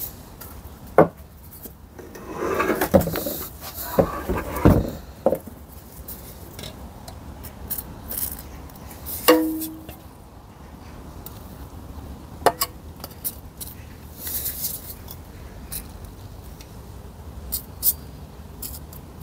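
Metal gearbox parts and tools being handled on a workbench: a rubbing, scraping stretch a couple of seconds in, scattered clicks and knocks, and one metallic clink with a short ring about nine seconds in.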